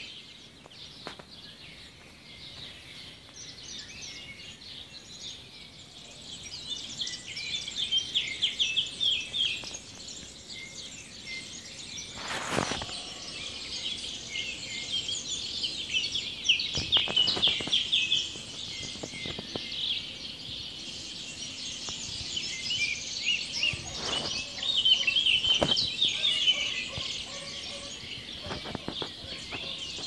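A chorus of many small birds chirping and twittering together in dense, overlapping calls, swelling and fading, with a few brief clicks.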